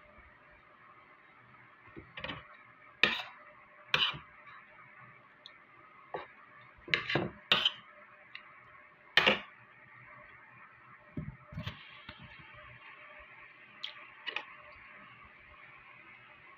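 Tableware clinking and knocking at a meal: about ten sharp, irregularly spaced clinks and taps of utensils against ceramic plates, over a faint steady background hum.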